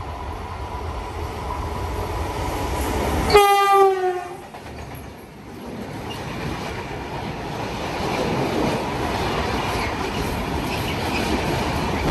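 Approaching freight train's electric locomotive sounds one short horn blast, its pitch sagging slightly, a few seconds in. The train then passes close by, its wagons' wheels rumbling and clattering over the rails.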